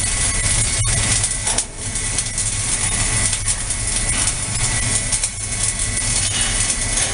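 Arc welding on a vertical seam by an automatic multi-pass welding carriage: a steady crackling hiss from the arc, with a low hum and a thin steady tone underneath.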